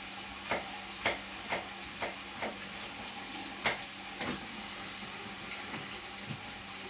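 Sharp knife strokes on a cutting board, about two a second at first, then two more after a short pause, over the steady sizzle of chopped onion, garlic and chili frying in a sauté pan.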